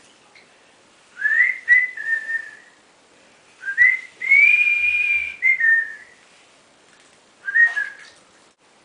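A person whistling a tune in three short phrases, the middle phrase holding one long note.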